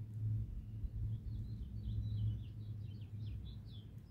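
A bird sings a quick phrase of about ten short high chirps, starting a little after a second in, over a steady low rumble.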